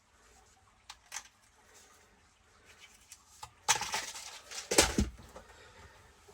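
Small parts being handled on a workbench: a few faint clicks, then two louder brief rustling clatters a little past halfway.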